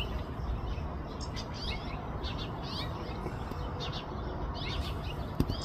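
Small songbirds chirping: clusters of short, quick, falling chirps repeating every second or so, over a steady low outdoor rumble, with one click near the end.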